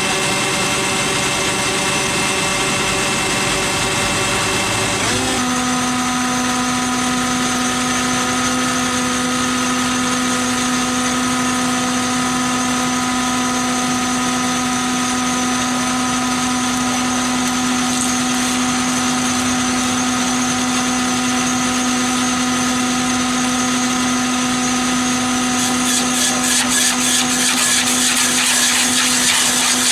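Engine of a heavy forestry machine running steadily. About five seconds in its pitch steps abruptly to a new steady note, and near the end a fast, even rattle joins it.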